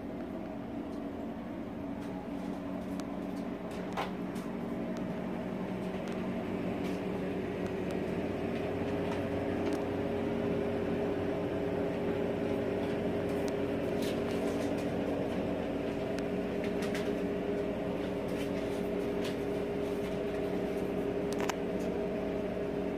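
Steady mechanical hum made up of several tones, with a few faint clicks now and then.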